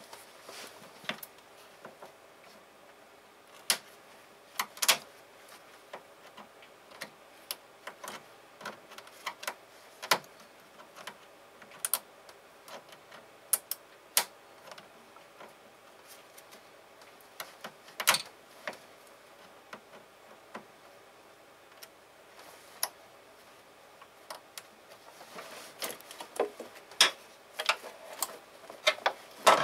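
Irregular light clicks and knocks of hand tools and parts being handled, with a quicker run of clicks near the end.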